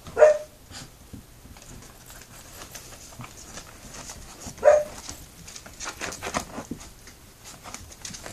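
Puppies playing: two short, loud high-pitched yips, one at the start and another about four and a half seconds in, with claws clicking and scuffling on a tile floor between them.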